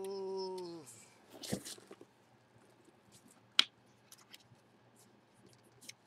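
Cardboard box being opened by hand: a short rustle about a second and a half in, a single sharp snap midway, and light taps and ticks of the flap and lid being handled.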